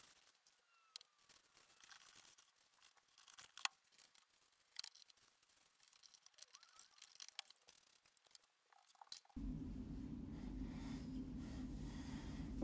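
Faint rustling of tissue paper and light clicks as Christmas ornaments are handled and packed into boxes. About nine seconds in, a louder steady low rumble starts abruptly and carries on.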